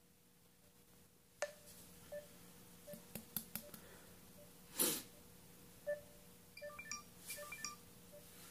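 Smartphone taps and short electronic beeps scattered through, while a call over a weak signal fails to connect, with a brief breathy rush about halfway through.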